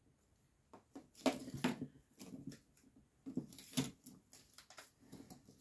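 Small cosmetic sachets and sample packets being handled, rustling and crinkling in short irregular bursts with a few light clicks.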